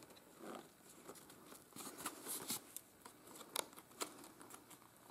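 Faint handling of a copper wire spiral binding and thick watercolour paper pages: light rustling of the paper with a few scattered small clicks.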